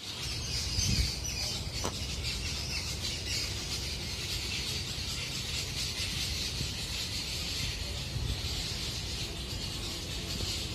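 Many small birds chirping together in a dense, continuous chorus of high calls, over a low rumble, with a brief thump about a second in.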